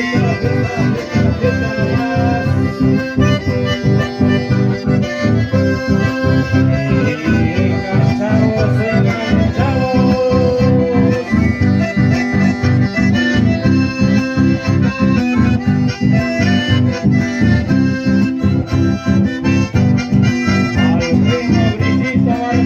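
Chamamé band playing live: two button accordions carry the melody over acoustic guitars, with a steady pulsing beat.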